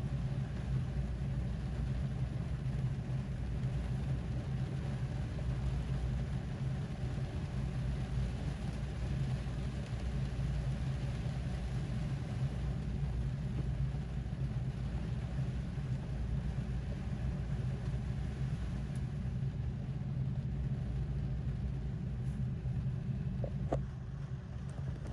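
Rain falling on a car's roof and windscreen, heard from inside the cabin as an even hiss over a steady low hum from the car, with a few faint clicks near the end.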